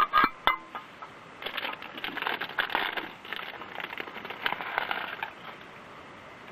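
A few sharp metallic clinks, with a short ring, of a utensil against a metal camp cooker, followed by a few seconds of dense crackling and scraping.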